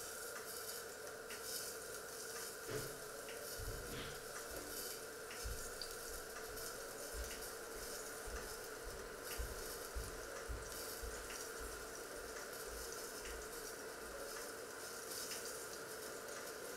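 Lidded stainless-steel pots simmering on an electric hob: a faint steady hiss and hum with scattered light ticks and soft irregular low bubbling thumps.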